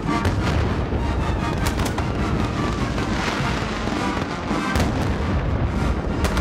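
Massed military bands playing loudly, with a few sharp booms from a horse-artillery field gun and bursting fireworks over the music.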